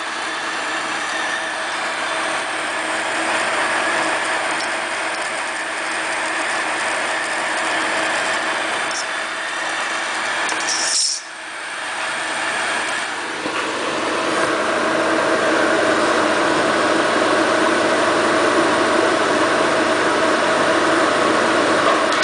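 Steady machine noise with a constant hum, which cuts out briefly about eleven seconds in and then starts again a little louder.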